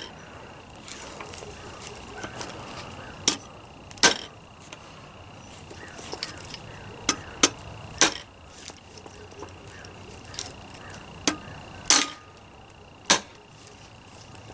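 Multi-tool survival hatchet chopping into a scrap 2x4. Repeated sharp blade strikes into the wood come a few seconds apart, some louder than others, with lighter knocks between them.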